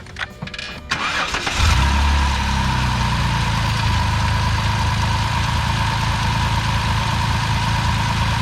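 Jeep Wrangler's 3.8-litre V6 cranked briefly and catching about a second and a half in, then idling steadily with a steady whine over it. The engine starts and keeps running with its newly replaced coolant temperature sensor, the part suspected of causing its stalling.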